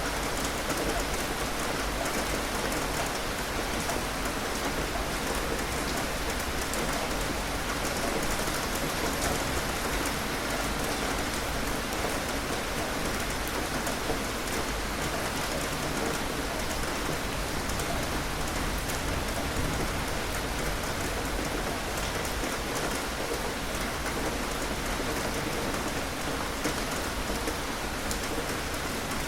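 Steady rain falling and pattering on a surface, a constant dense hiss of drops that doesn't let up.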